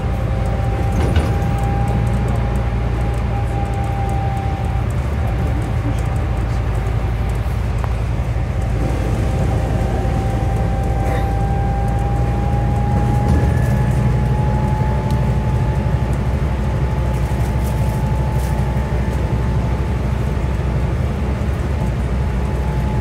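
Onboard sound of a Scania N250UD double-decker bus's Scania DC09 five-cylinder diesel engine running under way, a steady low drone with a high whine over it that climbs slightly in pitch partway through.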